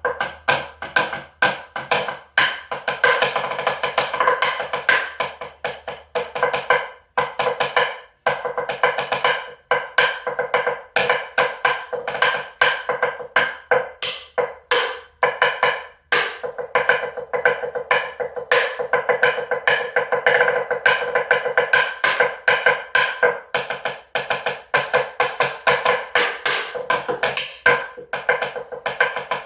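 Percussive music: a fast, dense run of sharp strikes.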